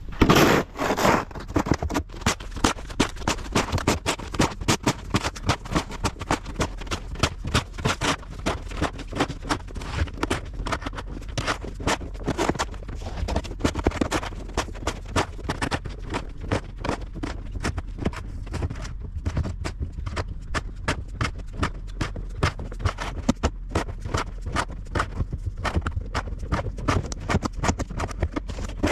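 Snow crunching and scraping in quick repeated strokes, several a second, typical of snow being cleared off a trailer or trampled underfoot. A steady low rumble runs underneath.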